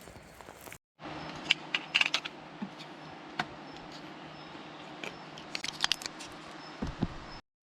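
Scattered small clicks and clinks of objects being handled, over a steady low hum.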